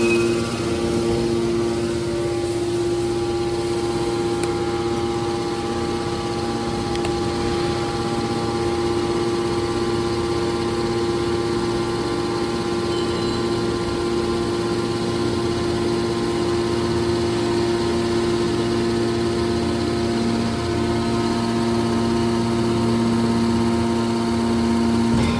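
Hydraulic scrap metal baler running: a steady mechanical hum with a few fixed tones that hold without change.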